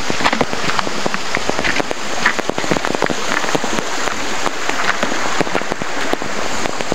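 Dense, loud crackling and rustling close to the microphone: leaves and undergrowth brushing against the handheld camera, with footsteps on the forest trail.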